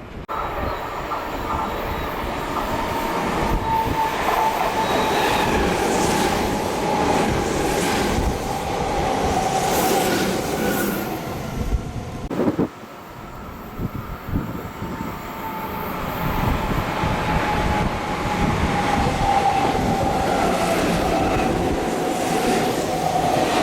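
Meitetsu electric trains passing through a station without stopping: running noise with a steady whine. The sound drops sharply about halfway through, then builds up again.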